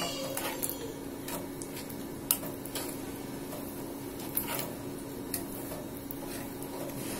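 Wooden spatula stirring thickening milk in an aluminium pan, scraping and tapping against the pan in irregular strokes, with one sharper knock about two seconds in. A steady low hum runs underneath.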